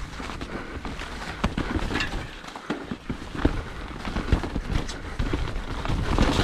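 Full-suspension mountain bike riding down a wet, muddy trail: irregular knocks and rattles as it rolls over rough ground, with a low wind rumble on the microphone.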